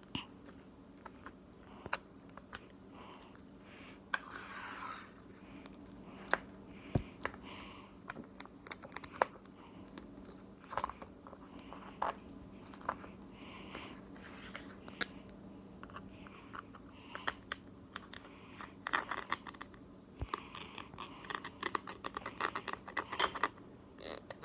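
Floam, a slime full of small foam beads, pressed and squeezed by fingers: a run of crunchy crackles and little pops, thickening into a dense crackle in the last few seconds.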